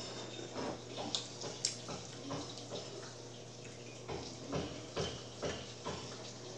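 Spicy rolled tortilla chips and tortilla chips crunching and rattling in bowls as two children eat them face-down without hands: irregular small crunches and clicks.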